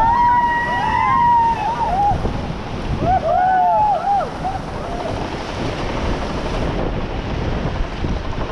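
Whitewater rapid rushing and splashing around a paddled raft, with wind buffeting the microphone. The rafters whoop and shout in excitement in the first two seconds and again about three seconds in.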